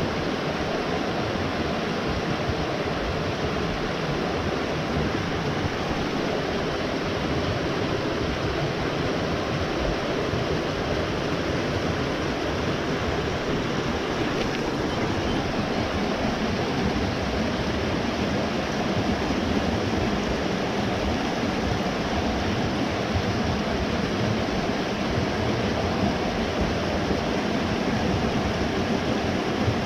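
Mountain stream rushing over rocks in a small cascade: a steady, unbroken rush of water.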